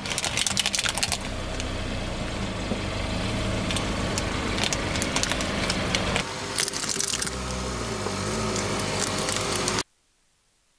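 Car engine running at low speed while its tyre crushes brittle objects, with bursts of cracking and crunching in the first second and again about two-thirds of the way through. The sound cuts off suddenly near the end.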